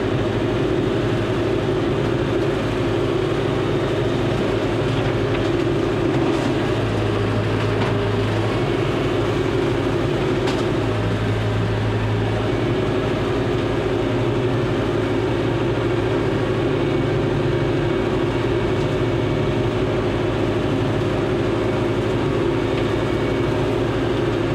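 John Deere 5085M tractor's diesel engine running steadily while it drives a brush hog (rotary cutter) down a trail: an even drone with no change in engine speed.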